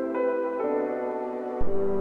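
Background music: soft piano-led ambient track, with a bass note coming in near the end.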